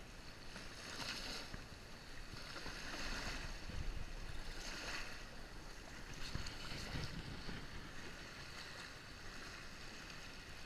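Wind on the microphone over the wash of surf, swelling every couple of seconds.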